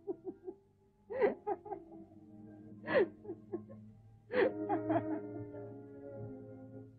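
A woman laughing softly in three short bursts, with quiet sustained music underneath.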